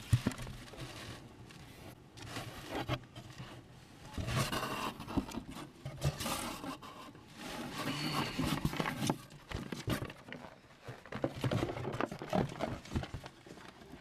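Cardboard box being handled close to the microphone: irregular scraping and rustling of the cardboard with knocks and clicks, opening with one sharp knock.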